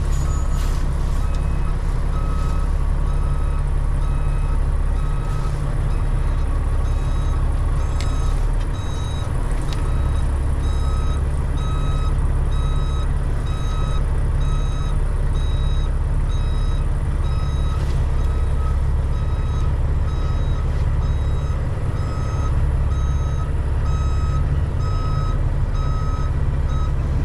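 Heavy tow truck's reverse alarm beeping at an even pace while the truck backs up, over the steady low rumble of its diesel engine, heard from inside the cab.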